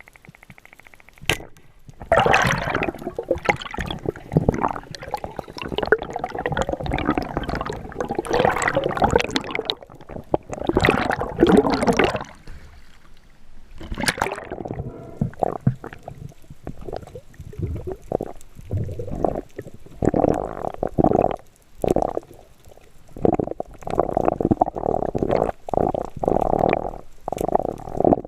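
Sea water sloshing and gurgling in irregular surges, with a few sharp clicks.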